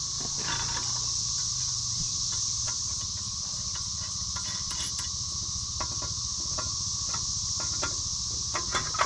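Steady chorus of crickets and other insects, with scattered light clicks and clinks of bolts and hardware being handled and fitted, a few together near the end.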